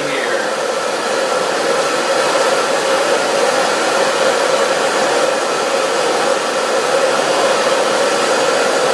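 Steady rushing noise from a water tank kept at a boil for bluing, with a steel shotgun part submerged in it.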